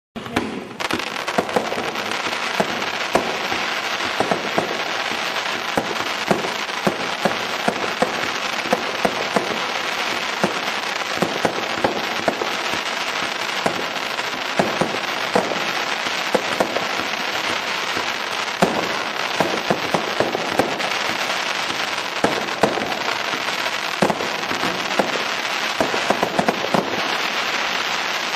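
A 49-shot 30 mm fan cake of consumer fireworks firing non-stop with crackling crossette and mine effects. A dense continuous crackle runs under sharp reports coming roughly twice a second, starting about half a second in.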